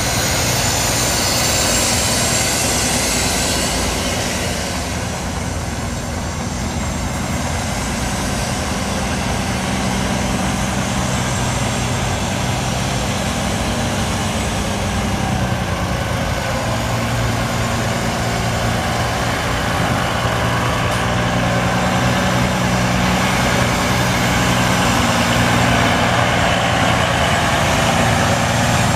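A 2005 Freightliner Columbia semi truck's Detroit Diesel Series 60 14.0 L inline-six turbo diesel running at a steady, even speed.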